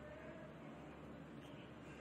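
Near silence: faint, steady room tone with a low hum.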